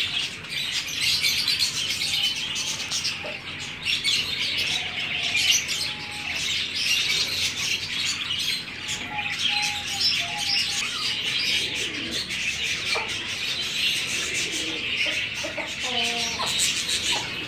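A flock of caged budgerigars chirping and chattering without pause, many small birds calling over one another. A few short, lower bird calls stand out now and then.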